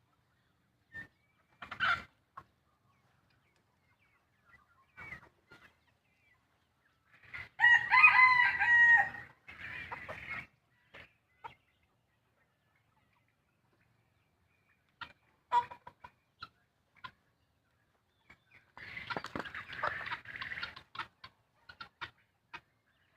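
Chickens clucking with scattered short calls, and a rooster crowing once, loud, about a third of the way in. A noisier flurry of calls comes near the end.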